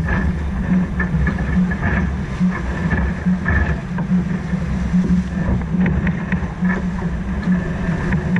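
Sailing catamaran moving fast through the water under spinnaker: wind buffeting the microphone and water rushing past the hulls, with a low pulsing about twice a second.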